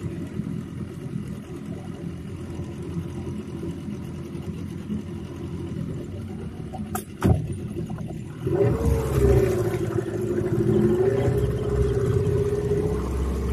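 Small outboard motor on an aluminium boat running low and steady, two sharp clicks a little past halfway, then the engine speeds up with a rising pitch and holds there as the boat moves off.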